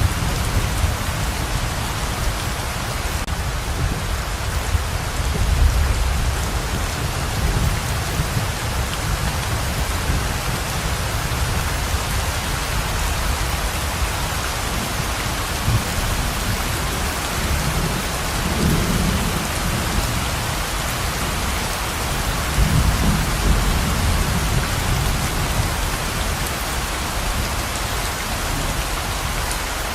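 Heavy rain pouring steadily, with a low rumble underneath that swells several times.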